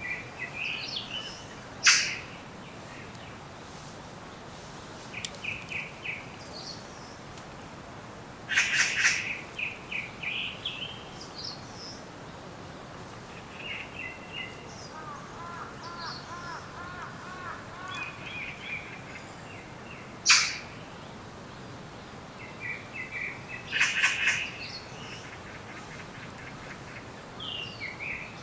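Several wild birds calling in a forest: repeated short series of high chirps, a run of lower rolling notes near the middle, and two sharp, very brief loud notes, one about two seconds in and one about twenty seconds in.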